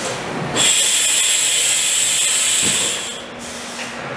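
Haas VF-2SS CNC vertical machining center running: a loud, steady high hiss with a thin whine cuts in abruptly about half a second in and stops about two and a half seconds later, leaving a lower machine hum.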